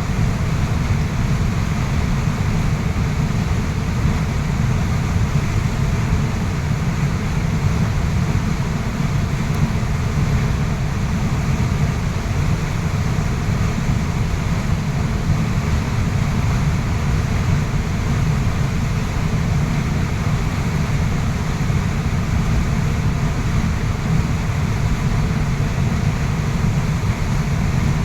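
Waterfall pouring without a break: a loud, steady, deep rush of falling water.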